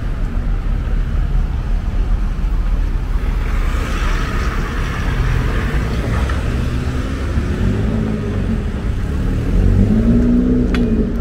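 Road traffic: cars and vans driving past close by, with a steady engine and tyre rumble. An engine's pitch rises and falls near the end as a vehicle goes by.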